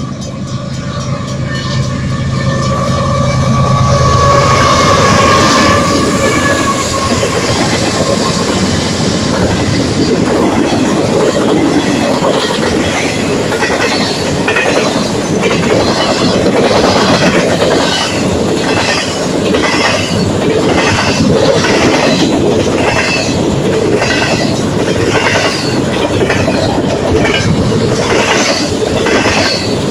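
Canadian Pacific double-stack container train passing: in the first few seconds the lead GE diesel locomotives go by with a steady hum and a falling whine, then the container cars roll past, their wheels clacking over the rail joints in a steady, regular rhythm.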